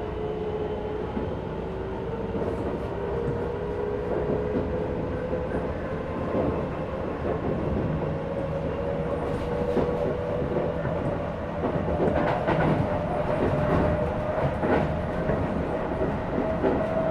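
Running sound inside a Keisei 3050 series motor car: the Toyo IGBT VVVF inverter and traction motors whine, the pitch rising slowly as the train gathers speed, over a steady wheel-and-track rumble. A run of wheel clicks over rail joints comes in the last third.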